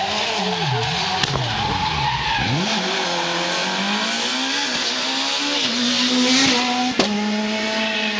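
Rally car engines at high revs, the pitch swinging up and down with throttle and gear changes for the first few seconds, then holding a steadier note. There is a sharp click about a second in and another near the end.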